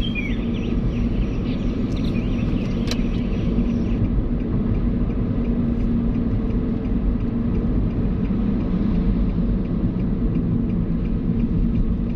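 Steady low rumble of a car driving on the road, heard from inside the car.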